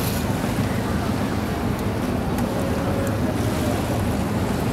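Steady low outdoor rumble with faint voices in the background.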